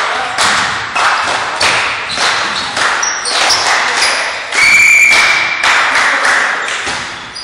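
Repeated sharp thuds echoing around a sports hall, about two or three a second, and a referee's whistle blown once for about a second midway.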